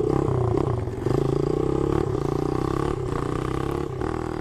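Small single-cylinder pit bike engine running under way, a steady buzzing drone that dips briefly about a second in.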